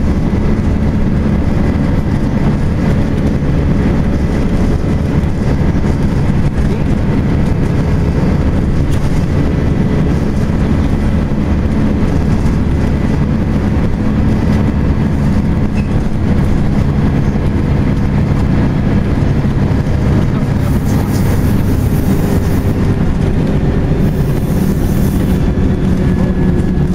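Volvo B10BLE bus running, its engine and loud cooling fan making a steady drone with a constant low hum. Two short bursts of hiss come near the end.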